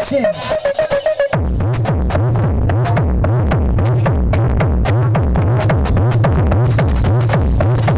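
Loud electronic dance music played through a mobile sound system with 18-inch subwoofers. About a second in, a build-up with a held note drops into a dense, steady beat with heavy deep bass pulses.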